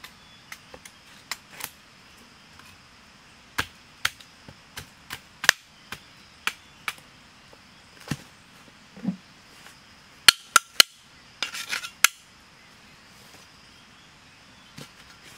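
Machete and hoe knocking against wood: sharp, irregular knocks and clacks, with a quick rattling flurry of strokes about ten seconds in.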